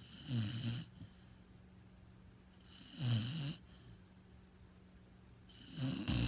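Pit bull snoring in its sleep: three rasping snores, each about half a second long and roughly three seconds apart.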